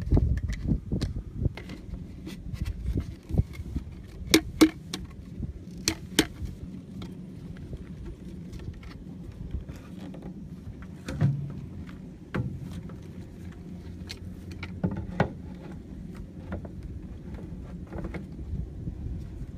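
Handling noise of blue PVC pipe parts, wire and a plastic water bottle being fitted together by hand: scattered sharp plastic clicks and knocks, the loudest a few taps about four to six seconds in.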